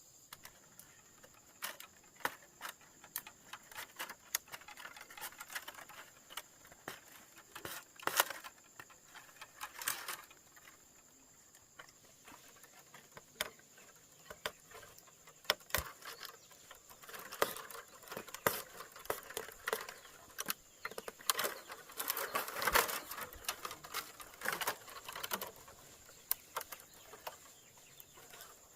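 Thin bamboo strips being handled and woven by hand, with irregular clicks, taps and rustles, busier in two spells in the middle and later on.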